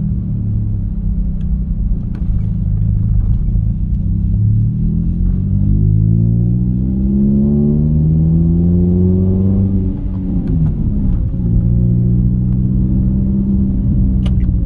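Toyota Calya's 1.2-litre four-cylinder engine heard from inside the cabin, its pitch rising steadily as the car accelerates from about four seconds in, then falling sharply about ten seconds in and running level after that.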